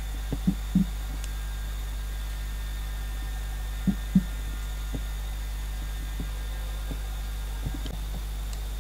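Soft low thuds of a clay coil being laid and pressed onto the rim of a hand-built coil pot. They come in a pair in the first second, another pair about four seconds in, and a few more near the end, over a steady low hum.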